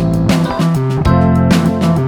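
Background music: plucked guitar with a bass line and a steady beat.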